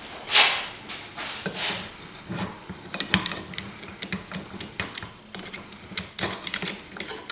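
Clinking and clattering of metal hand tools and parts being handled, an irregular run of sharp clicks and knocks with one louder scraping rush about half a second in.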